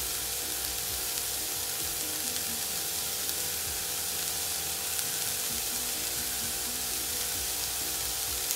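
Mixed chopped vegetables frying in hot oil in a wok, a steady sizzle.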